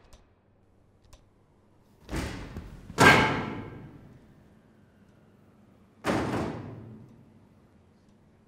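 Three heavy thuds, each dying away in a long echo, about two, three and six seconds in, the second the loudest, with a faint click about a second in.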